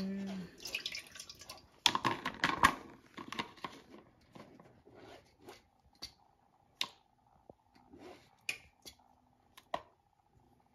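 A silicone spatula pressing and scraping wet ground soybean paste through a fine metal mesh sieve, straining out the soy milk. There are wet squishing scrapes and taps against the sieve. The sound is busiest about two seconds in, then thins to scattered strokes as the leftover pulp is scraped off into a plastic bowl.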